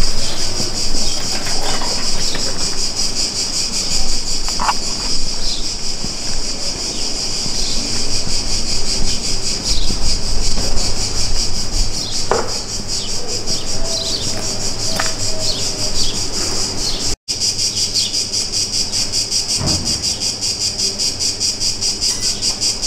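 Cicadas buzzing in chorus: a steady, high-pitched drone with a fast, even pulse.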